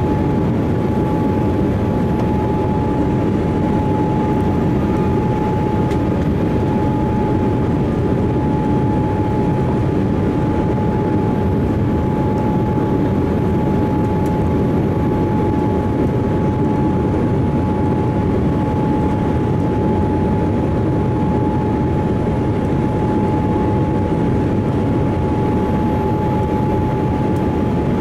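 Boeing 787-8 cabin noise in flight: a steady rush of airflow and Rolls-Royce Trent 1000 engines, with a clear whine held on one pitch.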